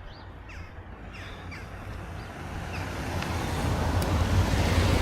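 A car approaching along the road, its engine and tyre noise swelling steadily to its loudest near the end. Several short, falling bird calls sound over it in the first three seconds.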